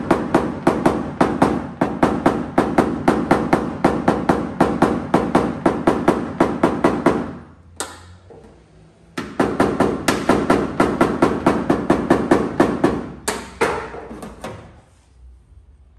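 Paintless dent repair: a tap-down tool held against a pickup truck's sheet-metal bed side is struck with quick, light taps, about four or five a second, knocking down the raised metal around a dent. The tapping stops for about a second and a half a little before halfway, resumes, and trails off into softer taps near the end.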